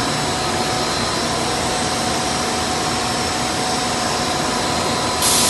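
Industrial plant machinery running: a loud, steady mechanical din with several high steady whining tones. A louder rushing hiss joins near the end.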